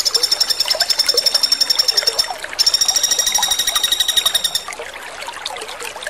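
Common flameback woodpecker (pelatuk bawang) calling: two rapid rattling trills of high, ringing notes, each about two seconds long with a short break between. The trilling stops for the last second or so, leaving faint background sound.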